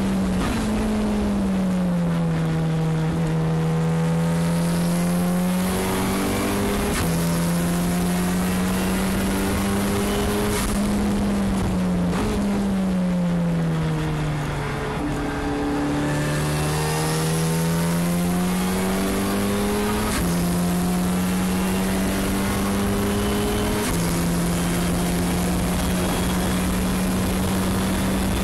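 Honda K20C four-cylinder engine of a race-prepared Acura NSX, heard from inside the cabin on a track lap. Its pitch falls as the car slows into a corner, then climbs as it pulls hard out of the corner. Twice late on the pitch drops suddenly at quick upshifts of the sequential gearbox.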